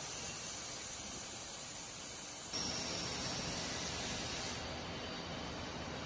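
Compressed-air blow gun hissing as it blows off machined crawler track links in a CNC fixture. The hiss gets louder about halfway through, with a thin whistle, and stops near the end. Under it runs a low steady hum of the machining line.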